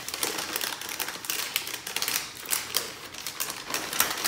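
Christmas wrapping paper crinkling and rustling as it is folded around boxes by hand: an uneven run of quick crackles.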